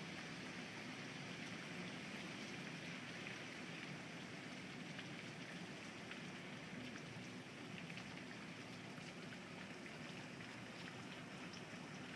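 Steady rain from Hurricane Sandy falling on surfaces, an even hiss with a few faint drip ticks.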